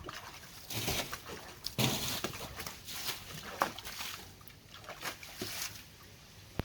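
Water sloshing and splashing in irregular bursts as a pond is being emptied.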